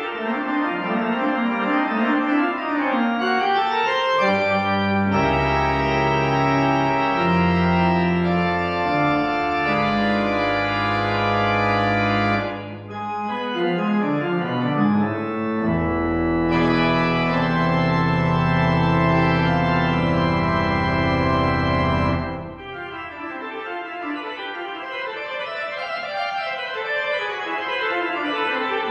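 Organ playing instrumental music: long held chords over deep sustained bass notes, with quicker moving passages between them. The bass drops out around the middle and returns for a second long held stretch before fading under lighter running notes.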